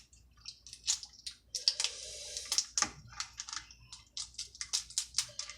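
Snow crab shells being cracked and the meat pulled out with wet squelching: a quick run of sharp cracks and clicks, with a wetter stretch about two seconds in.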